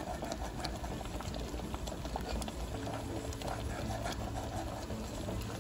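Wire whisk stirring a pan of bubbling grits: a steady wet churning with scattered small clicks.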